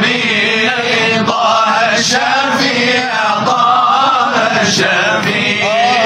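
Male munshids chanting a Shadhili Sufi inshad in Arabic, voices singing together in long, bending sung lines.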